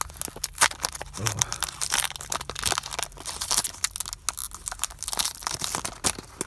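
Foil booster-pack wrapper crinkling and tearing as it is pulled open by hand, a dense run of quick crackles.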